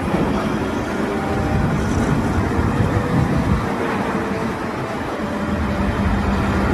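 Wheel loader engine running steadily.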